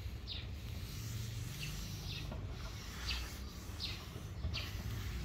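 A bird calling over and over: short, high chirps that sweep downward, about one every three-quarters of a second, over a steady low rumble.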